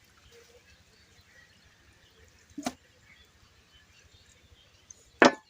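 Two sharp knocks against a quiet background, a light one about halfway through and a much louder one near the end.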